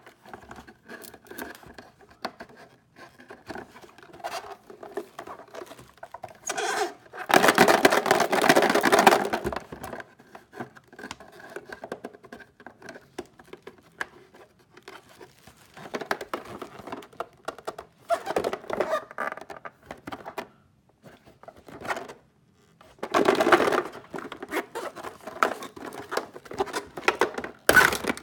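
Fingers tapping, rubbing and scraping on a hollow plastic toy house, with several longer bursts of scraping and rattling as it is handled. Near the end the house is opened and the plastic eggs inside knock about.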